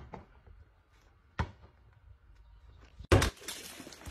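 A rubber ball thudding as it is kicked and strikes. About three seconds in comes a louder bang, followed by a short rush of noise.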